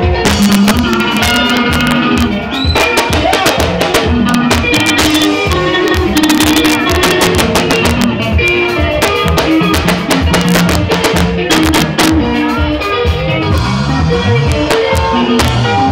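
Live sungura band playing: drum kit keeping a steady, quick beat under bass guitar and interlocking electric guitar lines, recorded loud on a phone.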